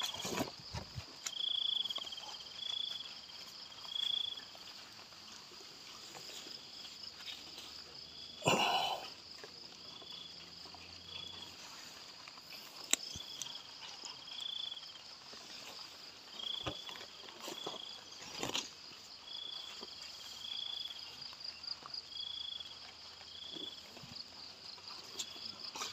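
Steady high-pitched chorus of insects, with a short chirping call repeated every second or so, often in pairs. A brief rustle or knock comes about a third of the way in, the loudest sound, and another about two-thirds in.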